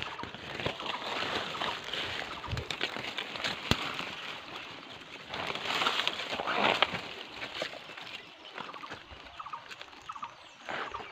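Footsteps rustling and crackling through dry leaves and forest undergrowth, irregular and louder in two stretches, with one sharp snap like a twig breaking.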